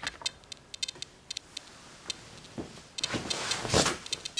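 XP Deus metal detector headphones giving a few short, irregular ticks in the first second and a half, then going quiet: barely any feedback from the 13-inch coil on default settings. Handling scuffs about three seconds in.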